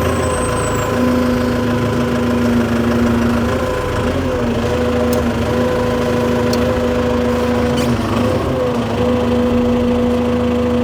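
An engine idling steadily with an even hum, its pitch wavering briefly twice.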